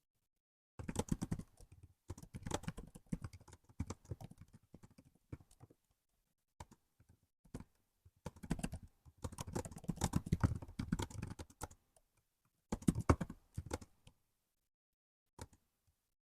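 Typing on a laptop keyboard: quick runs of key clicks in several bursts, separated by short pauses with a few single keystrokes.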